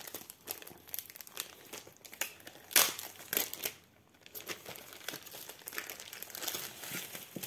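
Clear plastic zip bag crinkling and rustling in the hands as a rolled diamond painting canvas is pulled out of it: irregular crackles, the loudest about three seconds in.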